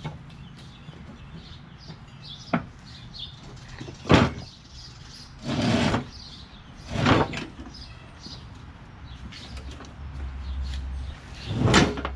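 Lawn tractor mower deck being unhooked and dragged out from under the tractor: a series of about five separate metal clanks and scrapes, the loudest a knock about four seconds in and another near the end.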